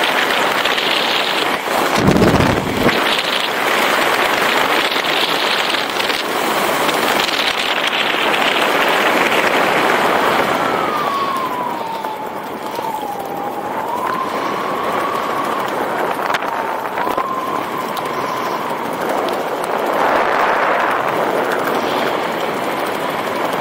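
Wind rushing past the microphone under an open parachute canopy, a steady noisy rush that eases about ten seconds in. After that a thin whistle wavers slowly up and down in pitch.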